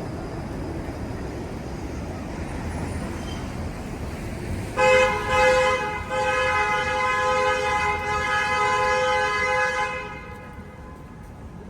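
Vehicle horn honking: two short toots, then one long held blast of about four seconds that cuts off near the end, over steady street traffic noise.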